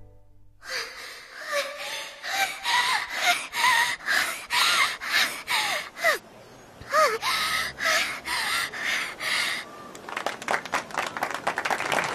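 A girl panting hard after sprinting: quick, ragged breaths about two or three a second, with short voiced gasps, pausing briefly midway. Near the end, a crowd starts clapping.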